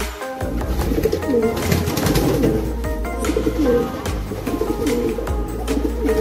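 Racing pigeons cooing in a loft, over background music.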